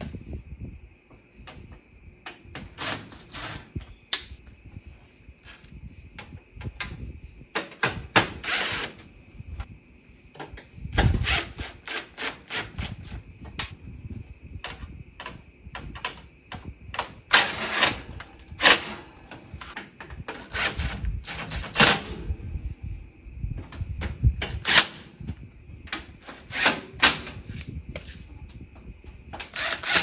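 DeWalt cordless drill driving screws out of a stove's control panel in many short runs, with clicks and clatter between them, over a faint steady high whine.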